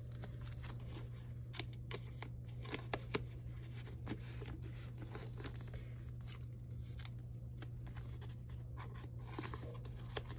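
Faint rustles and light clicks of photocards and plastic binder sleeves being handled, over a steady low hum.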